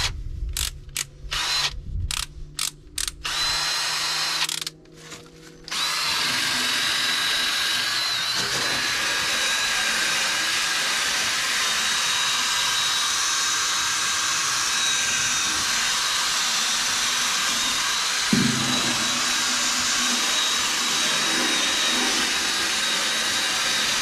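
Ryobi cordless drill spinning a brass wire cup brush against the rusty steel deck of a Rhino 3150 batwing cutter, scrubbing off rust. It runs in several short bursts at first, pauses briefly, then runs steadily with a high whine for the rest.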